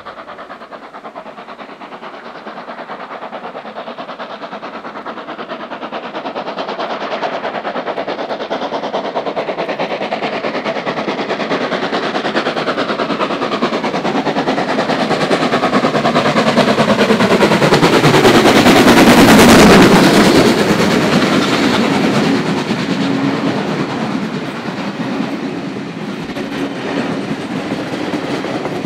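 Steam locomotive 3526, a NSW C35 class 4-6-0, approaches and passes close by under steam. Its rapid exhaust beats grow louder to a peak about two-thirds of the way through, with the pitch dropping as it goes by. Its carriages then roll past, their wheels clacking over the rails.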